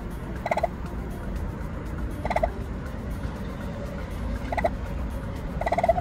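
Adult turkey giving four short calls, one or two seconds apart, over a steady low rumble.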